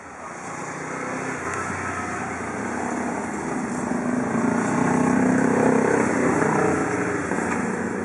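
A motor vehicle's engine passing by, growing louder to a peak about five or six seconds in and then beginning to fade.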